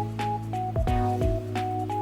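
Background music: an electronic track with short melodic notes over a steady thumping beat.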